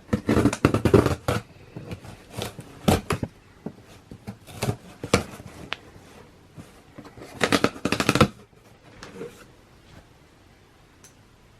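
Sneaker packaging being handled and opened: irregular crinkling and short sharp taps and knocks, busiest near the start and again about three quarters of a second before the halfway point through about eight seconds in, then quieter.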